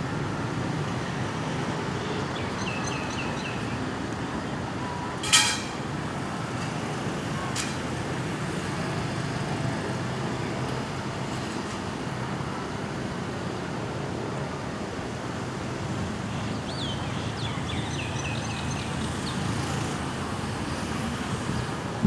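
Steady road traffic noise, a low rumble of vehicles, with a sharp loud knock about five seconds in and a fainter click a couple of seconds later. Short high chirps come twice, early and near the end.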